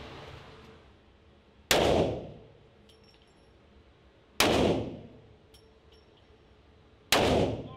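Three shots from a .50 Action Express Desert Eagle pistol, evenly spaced about two and a half seconds apart, each a sharp loud crack that rings briefly off the walls of an indoor range.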